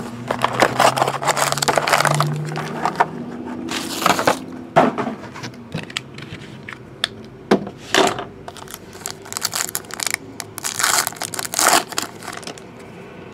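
Plastic shrink-wrap and foil card-pack wrappers crinkling and tearing in handled bursts with short pauses, as a box of hockey cards is opened and a pack is torn open.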